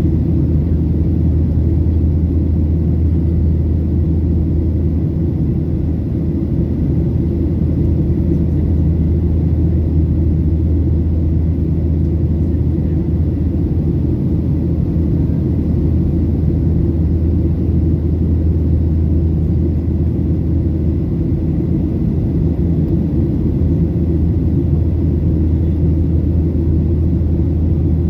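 Steady cabin noise of a Boeing 737-800 in flight, heard from a seat over the wing: the CFM56-7B turbofans and rushing air make an even low rumble, with a faint steady high whine above it.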